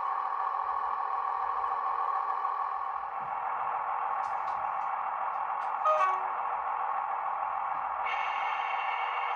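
A DCC sound decoder in a Bachmann OO-gauge Class 158 Sprinter DMU model playing recorded diesel engine sound through its small onboard speaker: a steady hum with little bass. Its tone thins about three seconds in and fills out again near the end, and a brief sharper sound comes about six seconds in.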